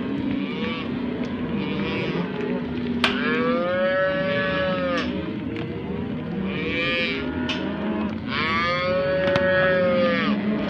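Many cattle mooing over one another, with two long, loud calls that rise and then fall in pitch, one about three seconds in and another about eight seconds in.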